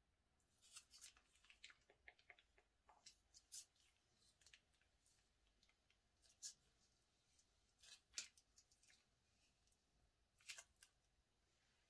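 Faint, irregular sticky crackles and clicks as glitter slime is squeezed out of a plastic piping bag.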